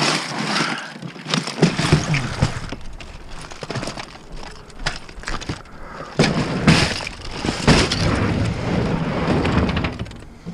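Junk being rummaged through and tossed around in a dumpster: repeated clattering knocks, cracks and scrapes of hard plastic and other objects, with a steady low rumble underneath from about a second and a half in.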